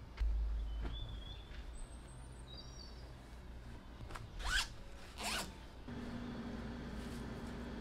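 Zipper on a fabric packing pouch pulled in two quick zips, a little under a second apart, after a dull low thump near the start as things are handled on the bed.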